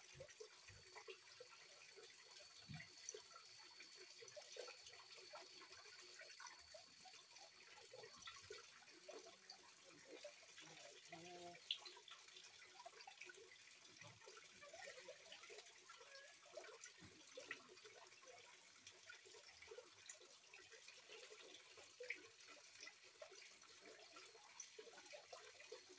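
Faint, steady trickle of running water, with scattered light clicks.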